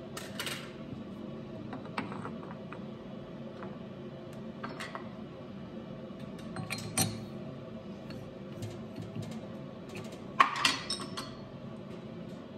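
Scattered metal clicks and clinks from a nylon bar being set by hand into a lathe's three-jaw chuck and the chuck being worked, over a faint steady hum. The loudest clatter comes near the end, a little past ten seconds in.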